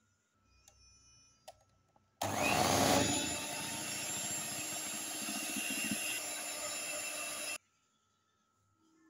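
Electric hand mixer running, its beaters whirring through a thick sponge-cake batter as flour is beaten in. It starts about two seconds in, loudest in its first second, runs steadily, and stops abruptly about five seconds later.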